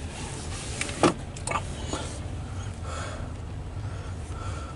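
Loaded coal train's hopper cars rolling past, heard from inside a vehicle cab: a steady low rumble, with a few short sharp knocks about a second in.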